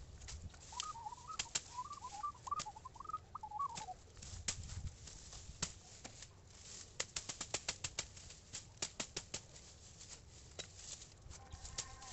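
Kukri machete blade chopping through dense tall grass and cane stems: a string of sharp chops and snaps, coming faster and closer together in the second half. A bird chirps briefly about a second in.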